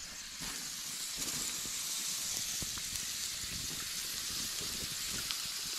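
Thick ribeye steaks sizzling on a wire grill grate over campfire coals: a steady hiss that swells about half a second in as the meat goes down, with a few faint pops.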